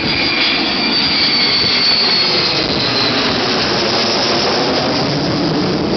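Avro Vulcan's four Rolls-Royce Olympus turbojets, loud and steady as the bomber flies low overhead, with high whistling tones that fade away over the first few seconds.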